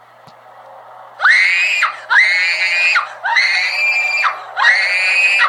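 A series of loud, high wailing cries, about one a second, starting about a second in; each slides up quickly and then holds its pitch. These are the unexplained noises heard outdoors, and nothing says what makes them.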